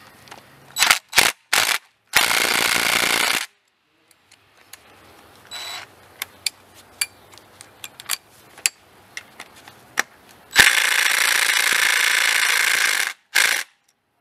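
Impact wrench hammering on a supercharger hold-down bolt: a few short bursts, then a run of just over a second, and later a long run of about two and a half seconds and one more short burst. The bolt is on tight.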